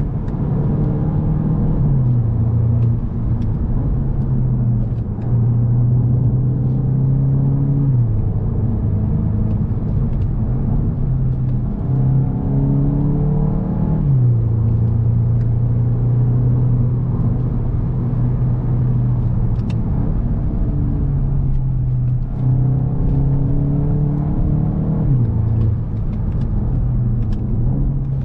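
2021 VW Golf GTI Mk8's turbocharged 2.0 TSI four-cylinder engine running at moderate, steady revs while driving. Its note climbs slowly and then drops sharply four times, as the 7-speed DSG gearbox shifts.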